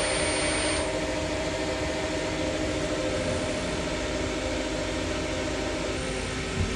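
CNC Swiss-type lathe running, its spindle drive giving a steady whining hum with several held tones. A higher hiss cuts off about a second in, and there is a soft knock near the end.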